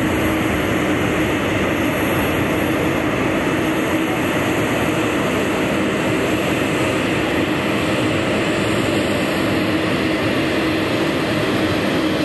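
Embraer Praetor 600 business jet flying overhead, its twin Honeywell HTF7500E turbofans giving steady jet noise with a low hum.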